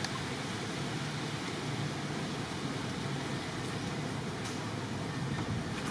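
Steady background hiss with a low hum, with a couple of faint ticks.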